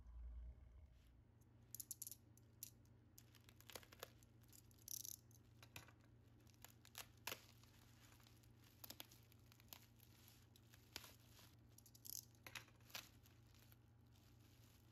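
Plastic bubble wrap crinkling and rustling as it is unfolded by hand from around a boxed album, with scattered sharp crackles.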